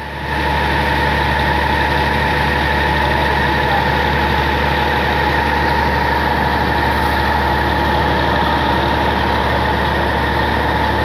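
Tractor engine running steadily, driving the water tanker's centrifugal pump, with a steady high whine over the low drone; it steps up in level a moment in and then holds even.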